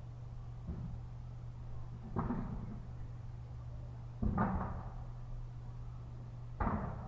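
Reclaimed wooden deck boards being handled, knocking four times about two seconds apart over a steady low hum.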